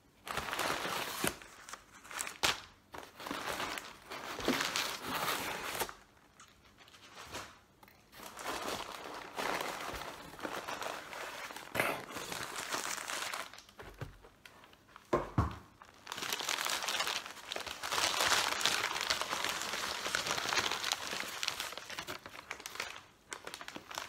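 Crumpled packing paper rustling and crinkling in irregular bursts as it is pulled out of a cardboard box, with a few sharp knocks.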